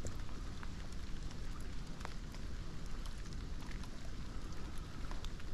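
Light rain falling: a steady hiss with scattered faint ticks of drops, over a low rumble.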